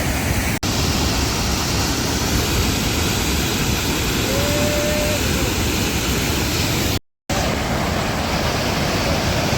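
Waterfall's steady rush of falling water, broken by a brief dropout about half a second in and a short silence about seven seconds in.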